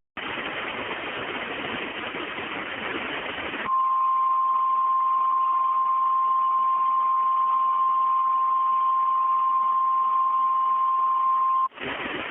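Harsh static hiss for about three and a half seconds, then a single steady high-pitched alert tone of a mock Emergency Alert System broadcast, louder than the static and held for about eight seconds over faint hiss, cutting back to static near the end.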